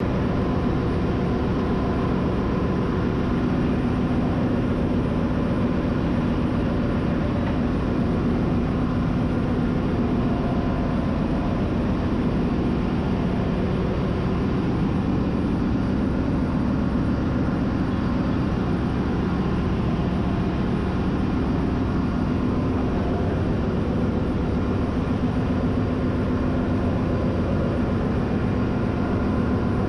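Steady engine-room noise of a ship with only one auxiliary diesel engine running and the main engine stopped: a constant, unchanging mechanical hum with a few steady tones in it.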